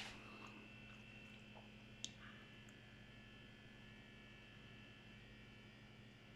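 Five-year-old Beko refrigerator running with a faint, steady low hum and a thin high whine over it, one short click about two seconds in. This is the sound its owner calls strange.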